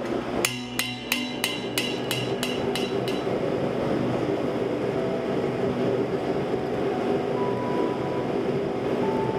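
Hammer blows on a thin steel heart being dished into a bowl-shaped steel form, ringing sharply at about three strikes a second and stopping about three seconds in. A steady rushing rumble follows.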